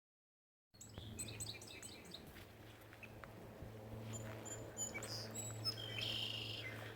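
Several wild songbirds chirping and calling, many short high chirps and whistles overlapping. The sound starts abruptly after a moment of silence, over a steady low hum.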